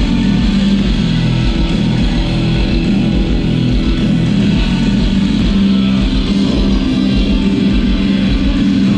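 Background music: a rock track with guitar, playing at a steady loud level.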